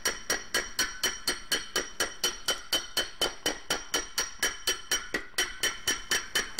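Sheet-metal panel of a BSA motorcycle tool box hammered over a dome anvil to raise a dent: quick, even glancing blows, about four or five a second, each with a metallic ring.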